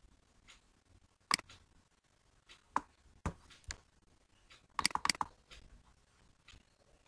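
Computer mouse clicking: single sharp clicks about half a second to a second apart, then a quick run of several clicks about five seconds in.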